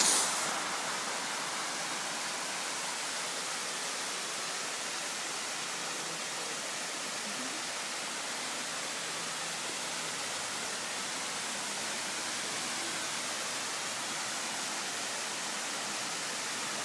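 Waterfall: water cascading down, a steady, even rushing noise.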